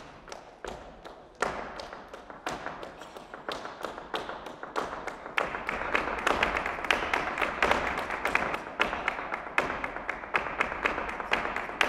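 Flamenco dancer's shoes striking the floor in footwork (zapateado): separate sharp heel and toe strikes at first, growing into a fast, dense run of taps about halfway through.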